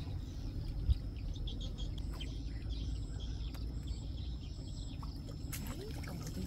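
Outdoor pond-side ambience: a steady low rumble of wind on the microphone, with birds chirping and insects buzzing at a steady high pitch. Near the end a pole rod is swung and the rig lands on the water with a light splash.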